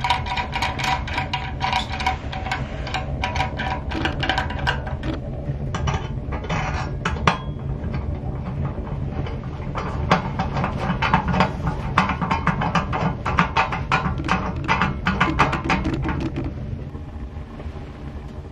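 Wood-pellet tent stove burning: a steady low rumble under dense, irregular crackling clicks, which die down near the end.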